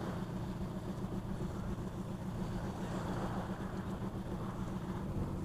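An engine running steadily, a low even drone.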